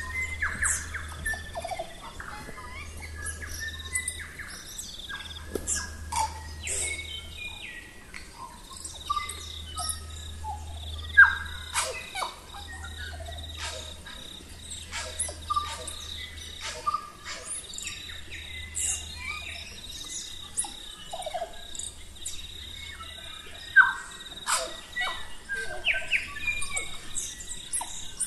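A chorus of New Zealand forest birds: many overlapping chirps, whistles, quick pitch sweeps and sharp clicking notes, with a thin steady high tone underneath.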